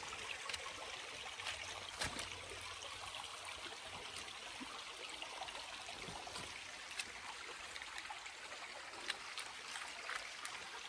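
Small creek running steadily, with a few sharp clicks over it.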